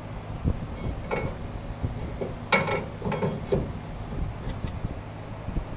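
Greased steel torsion bar being slid by hand into the rear torsion tube of a 1967 Porsche 911, giving a few light metallic clinks and knocks, the strongest about two and a half seconds in.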